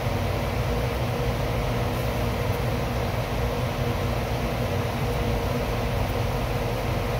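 A steady mechanical hum with a hiss over it, unchanging throughout.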